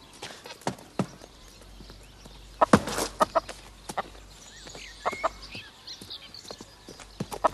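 Domestic hen clucking in short, sharp calls in a few bunches, the loudest about three seconds in, as it is held in someone's hands.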